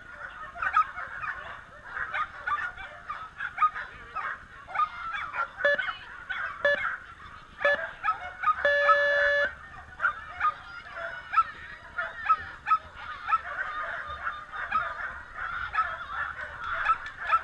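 Many dogs barking and yelping excitedly without let-up. About halfway through, an electronic start signal sounds three short beeps a second apart and then one longer beep: the countdown that starts a flyball race.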